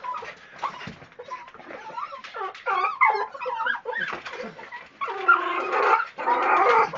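Small dogs whining and whimpering in excitement, with short wavering whines throughout that turn into louder, longer ones about five seconds in.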